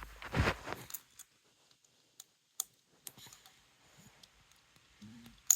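Small metal carburetor parts and tools clicking and clinking as they are handled, in scattered taps, with a rustle about half a second in and a sharp click near the end.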